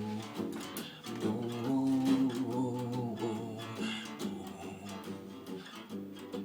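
Acoustic guitar playing the instrumental intro of a folk song, plucked and strummed chords.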